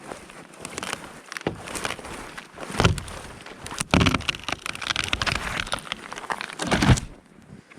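Wood creaking and cracking with scraping and crunching as two people push on a standing tree to topple it, in uneven surges, loudest about three, four and seven seconds in, and dying away just after the last surge.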